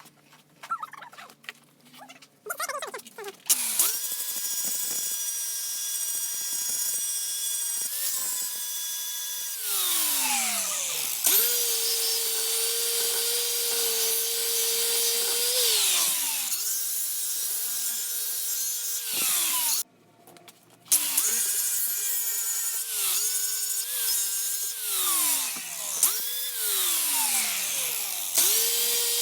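A small electric power tool's motor repeatedly spinning up, running at a steady high whine while working against the piece, and winding down, about five times, with a short pause about two-thirds of the way through.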